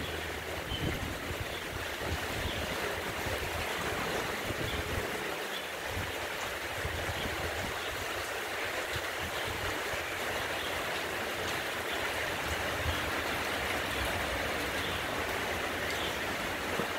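Steady rain falling on the leaves of mango trees and on wet ground, a continuous hiss, with low rumbles of wind buffeting the microphone now and then.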